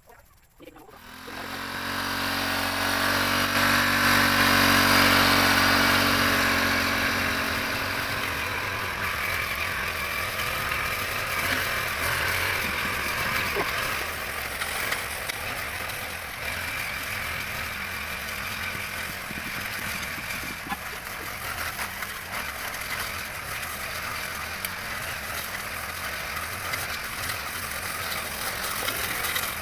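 An engine running, starting abruptly about a second in, loudest around five seconds, then settling into a steadier, quieter rushing noise.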